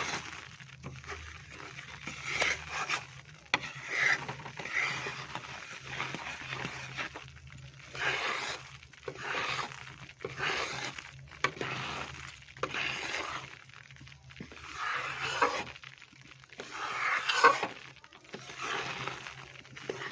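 A spatula scraping and stirring in a metal kadhai, in short irregular strokes about once a second, over a steady low hum.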